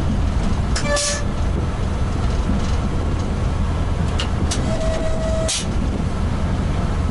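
Steady low rumble of the ChS200-09 electric locomotive running along the line. A brief pitched tone sounds about a second in and a longer one of under a second comes about five seconds in, each ending with a sharp click.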